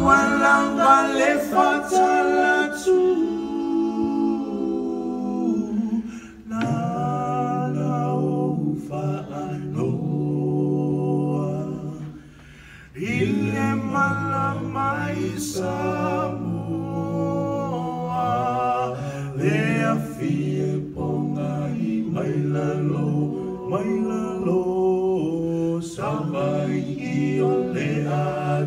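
Several male voices singing together in harmony, holding long notes, with little or no instrumental backing. The singing breaks off briefly about twelve seconds in, then resumes.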